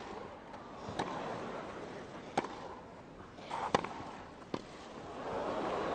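Tennis ball struck back and forth by rackets in a rally: five sharp hits, roughly one every second and a bit. Crowd murmur swells near the end as the point builds.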